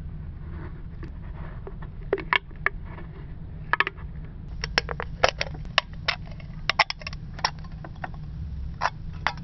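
An aluminium soda can being cut around with a utility knife, its thin wall crackling and clicking irregularly as the can turns against the blade.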